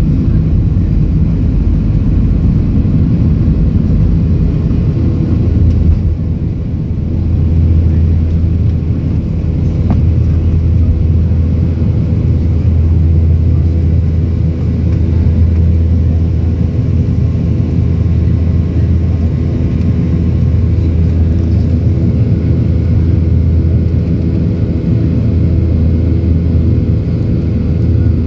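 Boeing 737-700's CFM56-7B turbofan engines at takeoff thrust, heard inside the cabin over the wing, with the rumble of the wheels on the runway until liftoff about six seconds in. After that there is a steady engine drone with a low hum and steady fan tones as the jet climbs out.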